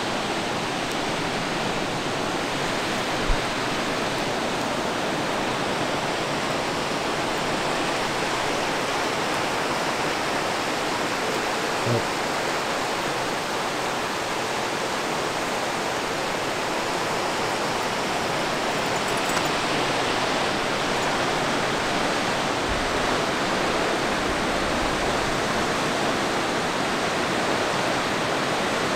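Brattfallet waterfall and the rapids below it rushing in a steady, even roar of water, with two short low thumps about three and twelve seconds in.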